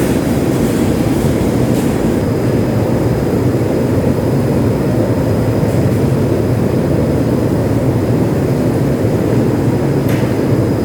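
Chicken-processing machine running steadily: a motor hum under an even mechanical rumble, with a faint high whine.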